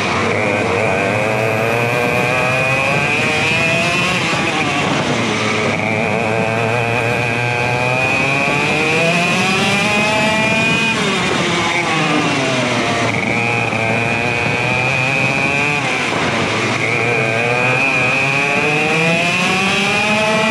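ROK GP Senior 125cc two-stroke kart engine at racing speed. Its revs climb steadily on each straight and drop sharply when the driver lifts for a corner, three times, then climb again.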